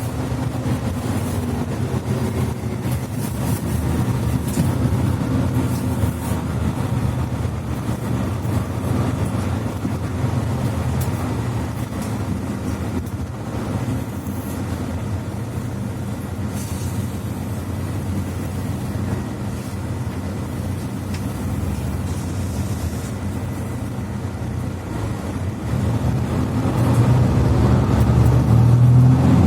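Mercedes-Benz C2 articulated bus heard from on board while driving: steady engine and Voith automatic transmission running under road rumble. The engine note grows louder near the end.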